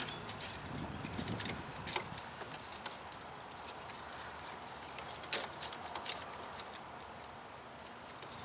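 Scattered light clicks and taps of zip ties being threaded through holes and wiring being handled, a few sharper clicks about five and six seconds in.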